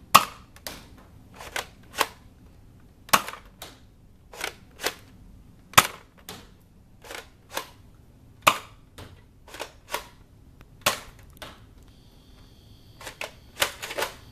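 Nerf Doomlands Vagabond pump-action dart blaster being pumped and fired over and over: sharp plastic clacks, many in pairs about half a second apart, coming faster near the end.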